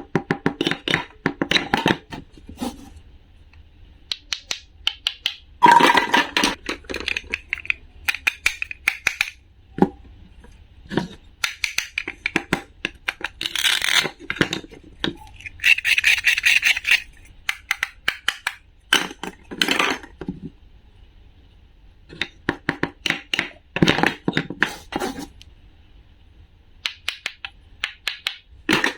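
Bursts of rapid clicking and clattering from small hard objects being handled. The bursts come in groups lasting a second or two, with short pauses between them.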